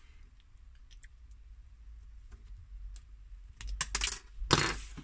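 Small clicks and scrapes of a tiny soft-plastic transforming toy being handled as its fold-out parts are pulled out. A few faint clicks come first, then a louder cluster of handling noise near the end.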